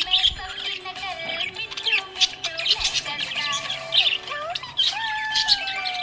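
Budgerigars chirping and warbling in a rapid, continuous chatter of short high chirps and clicks, mixed with longer gliding notes.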